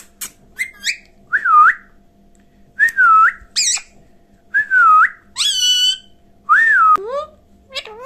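Indian ringneck parakeet whistling: four clear swooping whistles that dip and then rise, about one and a half seconds apart, with two harsher, buzzier calls between them and a few short chirps in the first second.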